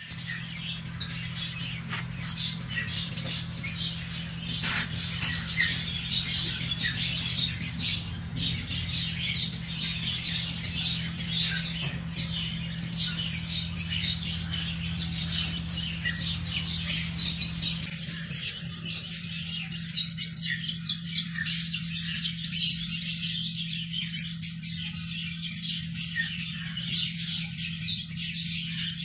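Ducklings and young chicks peeping and cheeping without pause, many short, high calls overlapping, over a steady low hum.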